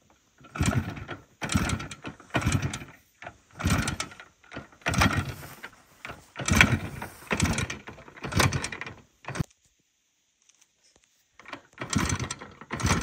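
IZh Jupiter-5 motorcycle's two-stroke twin being kick-started over and over, each kick a short burst of the engine turning over, under a second long. After about two seconds of silence the kicks resume near the end.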